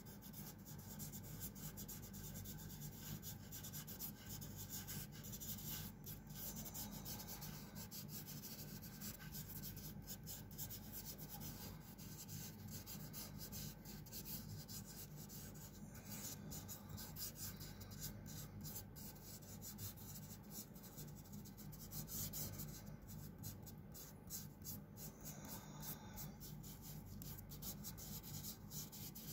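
Fingers rubbing and blending pastel on paper: faint, continuous dry rubbing in many short strokes.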